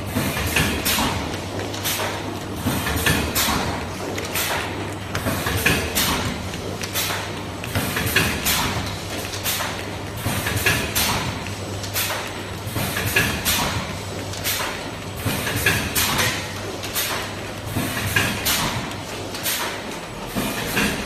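Automatic multi-lane sachet packing machine running, its sealing and cutting stations striking in an even rhythm about twice a second over a steady low hum.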